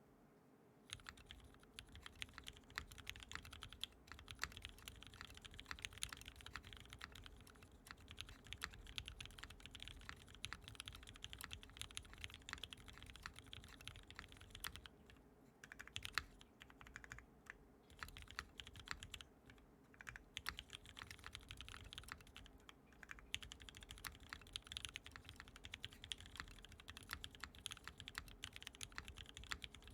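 Continuous fast typing on a Rama Thermal custom mechanical keyboard with Gateron Black Ink switches, lubed and filmed. A dense run of keystrokes starts about a second in, with a couple of brief pauses midway.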